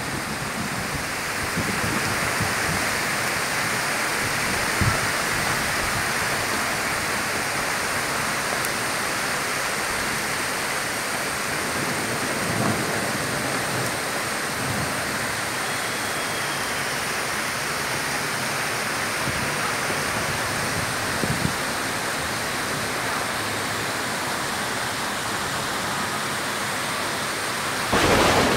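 Steady rain falling, an even hiss with a few faint ticks of drops; it swells louder near the end.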